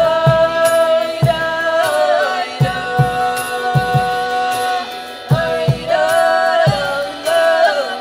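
Live folk music: a violin plays a melody of long held notes that slide in pitch, over a concert kokle, with irregular low drum beats.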